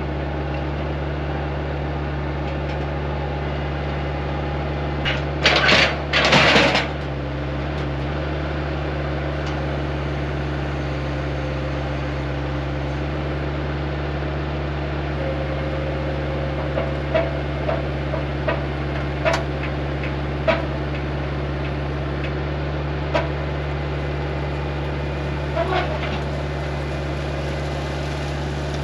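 Steady low mechanical hum, with two short loud hissing bursts about six seconds in and scattered light knocks and clicks later on.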